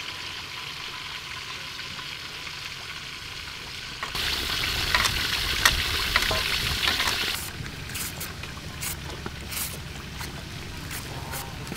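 Whole stingray deep-frying in a wok of hot oil: a steady sizzle that turns louder and crackling about four seconds in, then settles after a few seconds. Near the end come a few short, sharp scrapes of a knife shredding a young green mango.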